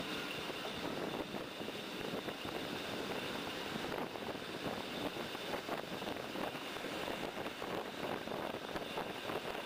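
Train running through a station yard, heard at the open window: a steady rumble of wheels on rail with wind noise, and rapid clicking and clattering over the rails, which grows denser about four seconds in.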